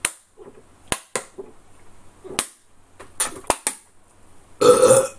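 Sharp clicks and crackles from a plastic drink bottle being handled while drinking, about eight in all, spaced irregularly, followed near the end by a louder half-second rush of noise.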